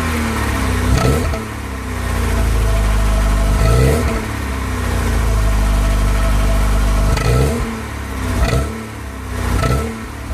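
Volkswagen Golf Mk2 GTI 8-valve 1.8 four-cylinder engine on its stock exhaust, idling and blipped up in several quick revs that fall straight back to idle. The engine is running early after a cold start.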